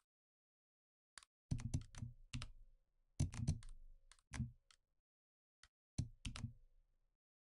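Keys pressed on a computer keyboard, in three quick runs of keystrokes.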